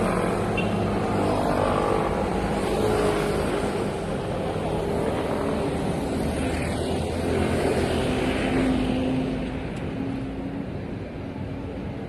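A road vehicle's engine running close by amid street traffic, its pitch shifting as it moves, growing quieter near the end.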